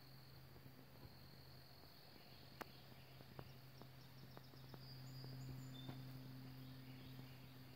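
Faint outdoor ambience: insects trilling steadily and high over a low steady hum, with a few scattered sharp clicks, the loudest about two and a half seconds in, and a few short high chirps a little past halfway.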